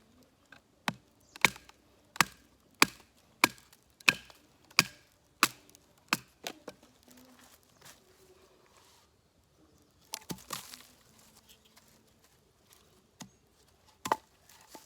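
Cold Steel Rajah II folding knife chopping into dry wood: about ten sharp chops in quick succession, roughly one and a half a second. After a pause comes a short cluster of cracks, then two more chops near the end.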